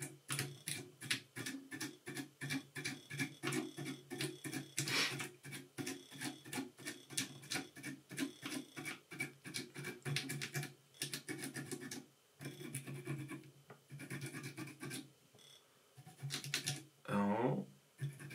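Dubbing brush scratching back and forth along a tube fly's dubbed body to brush the fibres out, in quick strokes about four a second, with a couple of short pauses in the second half.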